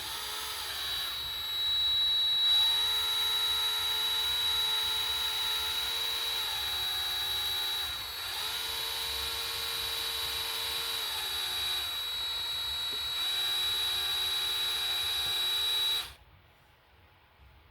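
Electric drill running steadily with a small left-hand drill bit boring into a broken bolt in an engine block, its motor whine dipping and recovering as the bit loads; it stops sharply near the end.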